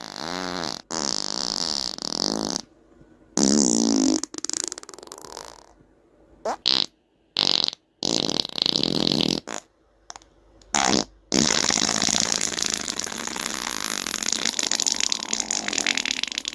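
A string of fart sound effects, about nine of different lengths with short gaps between them, some wobbling in pitch. The last one is a long, drawn-out fart lasting about five seconds.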